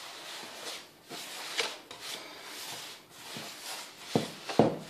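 Hands rubbing and mixing coarse semolina, moistened with smen and olive oil, in a wooden bowl: a gritty, rustling scrape. Two sharp knocks come near the end.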